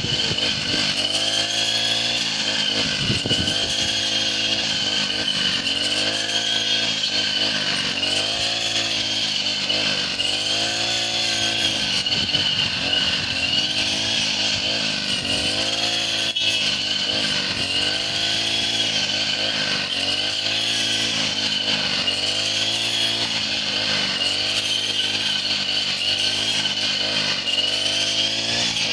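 Petrol brush cutter running hard, its engine note rising and falling about every second and a half to two seconds as the blade is swept through dry stalks close to the ground.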